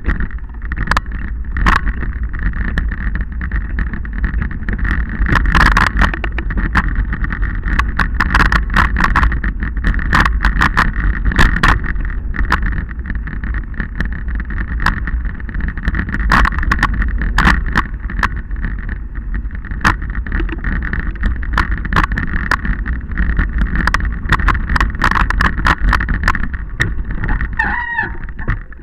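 Wind buffeting the microphone of a camera mounted on a bike ridden over a rough rocky trail, with frequent rattling knocks from the bumps. A short wavering squeal comes near the end.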